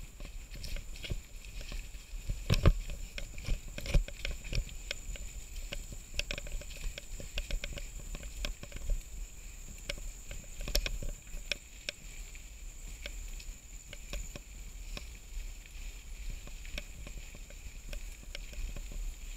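Mountain bike rattling over a rough dirt trail, heard through a mounted action camera: a constant run of irregular clicks and knocks from the bike and camera mount jolting over stones and roots, with heavier knocks about two and a half and four seconds in, over a low rumble.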